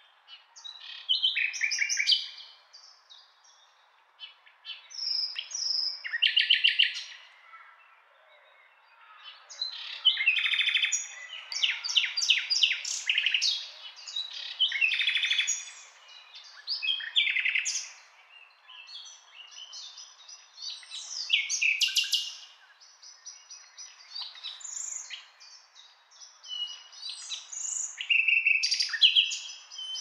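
Nightingale singing: a run of varied phrases of rapid repeated notes, trills and clear whistles, each a second or two long, with short pauses between them.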